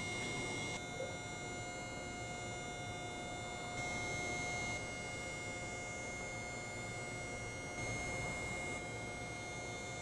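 Steady electrical hum with several thin, high whining tones from parked electric trains standing powered up. The higher tones grow briefly louder for about a second, twice.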